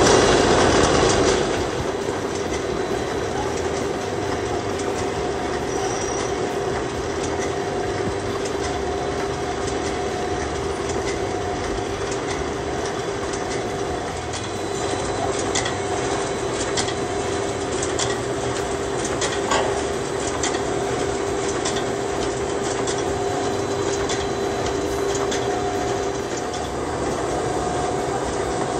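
Newlong paper-sack bottoming machine running: a steady mechanical noise with a constant hum and scattered short clicks, a little louder for the first second or so.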